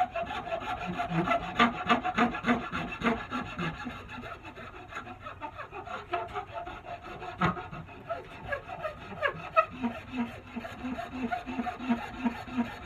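Hand file rasping back and forth across the end grain of a bitternut hickory axe handle, rounding the knob end. The strokes repeat steadily, lighter for a few seconds in the middle and then regular again.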